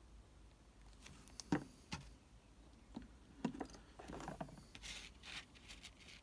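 Faint handling noises of plastic strips and a plastic glue bottle: a few light clicks and taps, then brief rustling and scraping about four to five seconds in.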